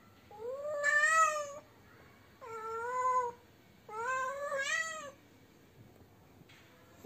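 A cat yowling three long drawn-out calls, each rising in pitch at the start and lasting about a second, the first the loudest: a cat calling for a mate.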